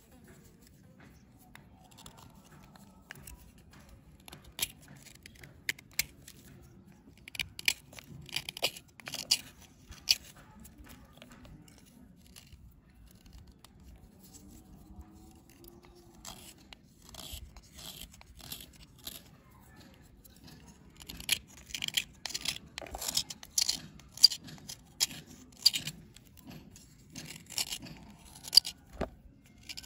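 A knife blade scraping and shaving a dry, crumbly bar in runs of short, sharp scratchy strokes. One run comes a few seconds in, a quieter pause follows, and a busier run fills the second half.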